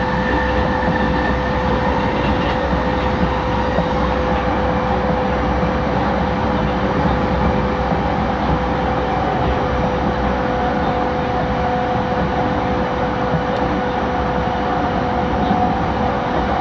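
JR East E231 series suburban train standing at the platform, its onboard equipment giving a steady hum. Two whining tones run through it, the higher one sinking slowly in pitch.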